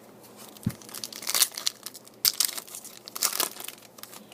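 Foil wrapper of a Topps Chrome trading-card pack crinkling and tearing in short bursts as it is opened by hand.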